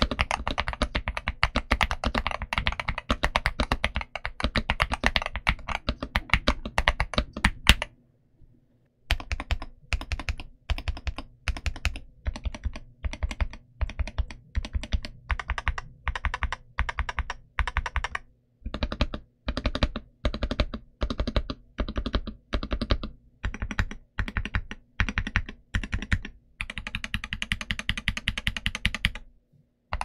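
Boyi 66 Pro HE mechanical keyboard with linear Hall-effect switches being typed on quickly with both hands. After a short pause about eight seconds in, keys on the right side are pressed separately at roughly two presses a second. Near the end there is a fast, even run of keystrokes.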